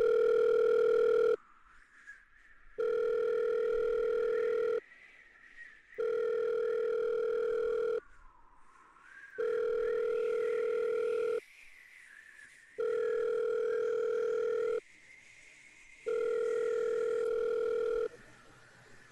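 Outgoing ringing tone of a video call waiting to be answered: a steady electronic tone lasting about two seconds, repeating roughly every three and a third seconds, about six times.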